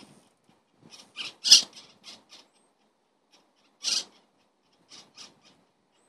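Short dry rasping tears in a few irregular bursts, the loudest about a second and a half in: a sparrowhawk plucking and tearing at a freshly caught great spotted woodpecker.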